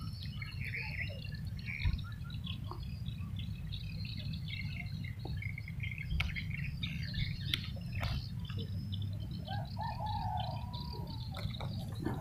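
Birds chirping and calling in quick, busy bursts, with one longer arching call about ten seconds in. A steady low rumble runs underneath, and a few sharp clicks stand out.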